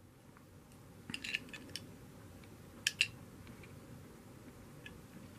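A small toy double-decker bus being turned over in the hand gives faint handling clicks and rustles, a few about a second in and a sharper single click near three seconds.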